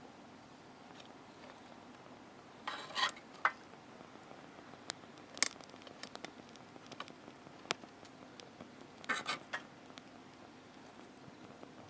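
Scattered clinks and clatters of cookware and utensils: a short cluster about three seconds in, single sharp ticks around five and a half and seven and a half seconds, and another cluster about nine seconds in, over a faint steady background.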